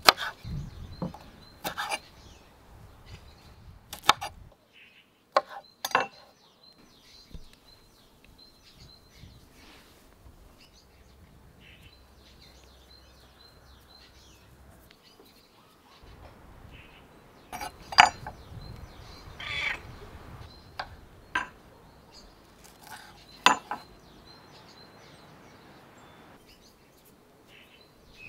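Knife chopping dandelion flowers on a wooden cutting board, with irregular sharp taps and soft handling sounds, and birds chirping in the background.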